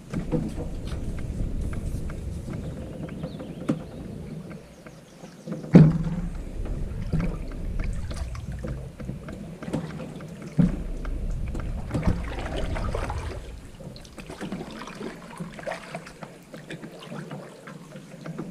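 A canoe being paddled: paddle strokes swishing through the water every second or two, with a few sharp knocks of the paddle against the canoe's hull, the loudest about six seconds in.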